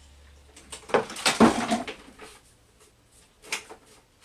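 Stored items being rummaged through and shifted by hand while searching for something. About a second in there is a clatter of objects knocking and sliding, followed by a few scattered knocks and clicks.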